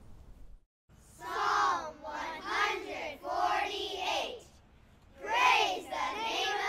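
A class of young children reciting in unison, their voices starting together about a second in and going in short, loud phrases with brief pauses between them.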